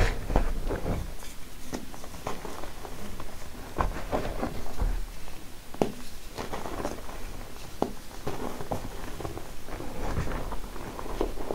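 A dusty grey block crushed and crumbled between the hands, with irregular close crackles and soft crunches. Fingers press and pat into a bed of dry powder, giving a few heavier soft thuds.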